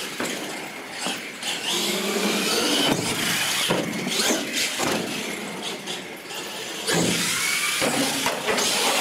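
Radio-controlled monster truck's electric motor whining up and down with the throttle as the truck drives and wheelies, its tyres scrubbing on a bare concrete floor. The sound gets suddenly louder about seven seconds in.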